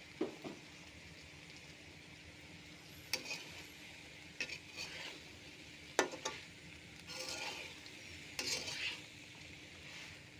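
Food sizzling in a pan with a steady hiss, while a spatula stirs it, scraping and knocking against the pan about seven times at irregular intervals.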